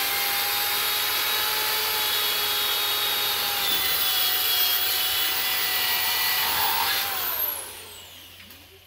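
Red cordless drill running at a steady high speed, boring through a tough rubber strip into the original bolt hole of a steel tractor wheel rim. About seven seconds in the trigger is released and the motor winds down with a falling whine.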